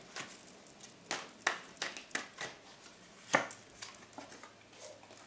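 Tarot deck being shuffled by hand: a handful of short, sharp card snaps and taps at irregular intervals, the loudest about three seconds in.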